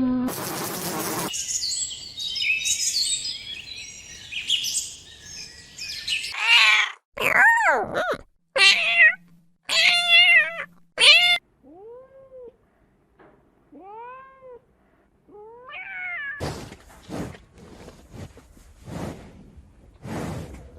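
Cat meowing: a run of short calls that rise and fall in pitch, spread over several seconds in the middle. Before them comes a stretch of high, hissy noise, and after them a few brief noisy bursts.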